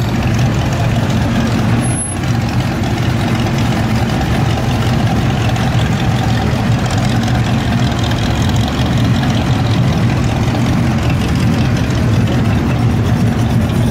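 1969 Dodge Charger's V8 engine idling steadily, loud and unrevved.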